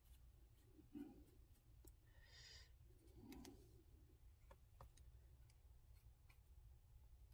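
Near silence: room tone with a few faint rustles and small clicks.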